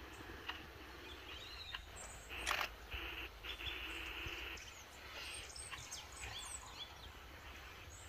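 Faint woodland ambience with soft, scattered bird chirps.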